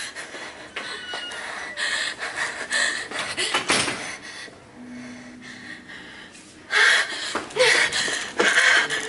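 A young woman panting and gasping for breath in fright, in uneven noisy breaths that grow much louder in the last couple of seconds.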